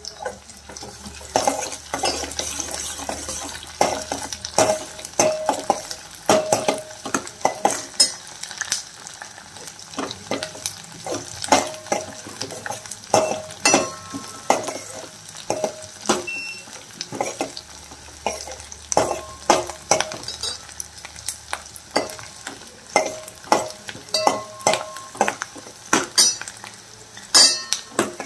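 Steel ladle stirring shallots, garlic and curry leaves frying in sesame oil in a stainless steel pot: a steady sizzle under frequent irregular clinks and scrapes of the ladle against the pot, some ringing briefly.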